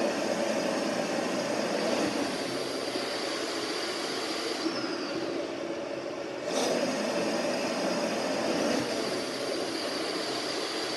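Blower of a BiWaze Cough mechanical cough-assist device driving air through its hose circuit in an automatic therapy cycle: a steady rush of air with a thin whine. It eases briefly about four and a half seconds in and comes back stronger about six and a half seconds in, as the device moves from one pressure phase through a pause to the next.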